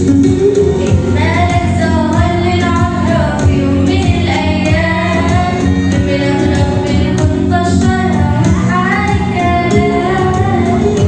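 Arabic Christian hymn sung by a female solo voice over instrumental backing with a steady beat.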